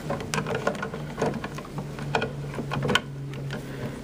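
Irregular plastic clicks and knocks as refill cartridges are handled and pushed into an HP Officejet Pro 8600's print-head carriage, with a sharper click about three seconds in, over a steady low hum.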